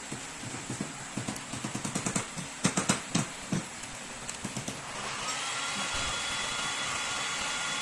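Quick metal clicks and knocks as the strapping-tool tension motor's gear end is worked by hand in a vise. About five seconds in, a heat gun switches on and runs with a steady blowing hiss and a thin whine, heating the motor housing.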